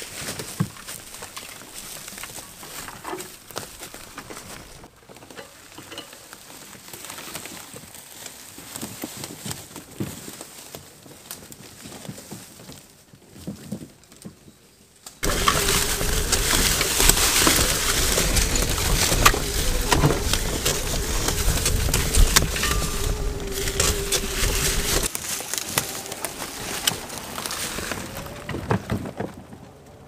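Electric trike towing a bicycle caravan rolling over a leaf-strewn forest track: tyres rustling and crackling through dry leaves and the rig rattling. About halfway through the sound suddenly becomes much louder and closer, with rumble and wind and a steady motor whine, for about ten seconds, then drops back to quieter rolling.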